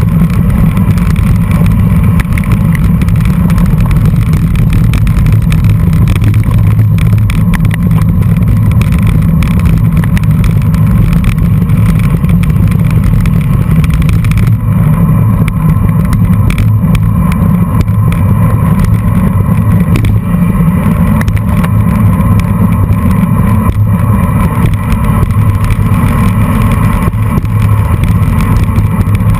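Wind buffeting the microphone of a camera mounted on a road bicycle being ridden at race pace, with tyre and road noise: a loud, steady low rumble.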